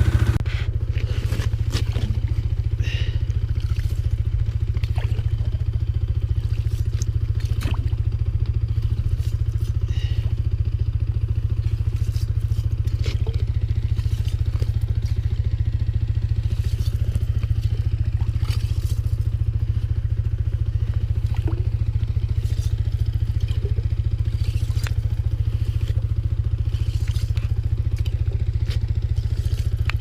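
Small engine running at a steady speed, with scattered clicks and rattles over it.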